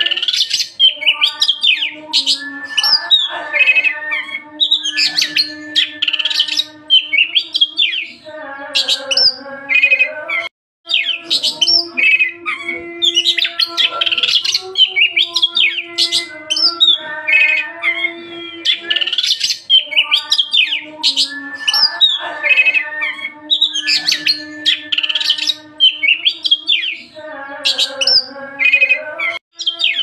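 Oriental magpie-robin (kacer) singing a long, loud, varied song of rapid whistles and chattering phrases, with lower buzzy, wavering calls between them. The same stretch of song comes round again after about 19 seconds.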